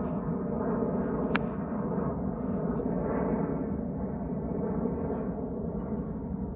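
Steady drone of an aircraft passing over, holding several tones at once. About one and a half seconds in, a single sharp click of a golf club striking the ball on a short pitch shot.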